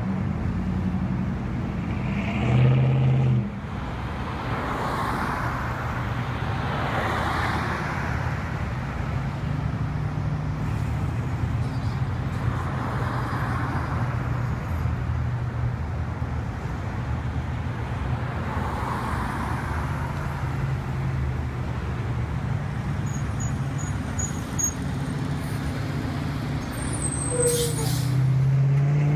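Road traffic: engines of slow-moving cars and trucks running steadily, with vehicles passing every few seconds. There is a louder engine swell about three seconds in, and a heavy truck's engine grows louder near the end.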